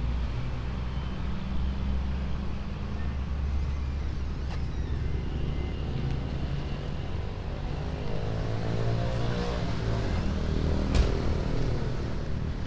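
Motor vehicle engine running with a steady low rumble, swelling a little about nine to ten seconds in, with a sharp click near the end.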